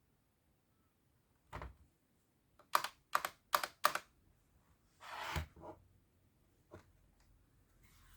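Keystrokes on a custom mechanical keyboard with red linear switches and PBT pudding keycaps: a single press, then four quick presses about three a second, a short rustle, and one more press near the end.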